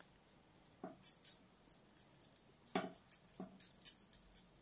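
Metal knitting needles clicking faintly against each other while stitches are purled: a few scattered light clicks in small clusters, about a second apart.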